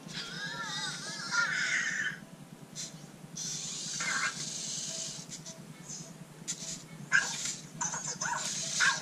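Anki Cozmo toy robot's electronic voice: a warbling, chirping call in the first two seconds, followed by several short hissy electronic bursts.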